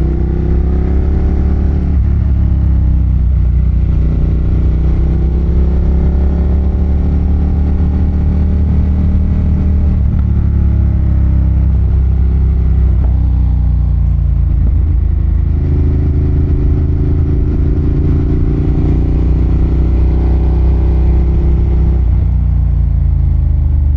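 Ducati Monster 1200's L-twin engine pulling along under way. Its pitch rises and falls several times as the rider rolls the throttle on and off and shifts gears.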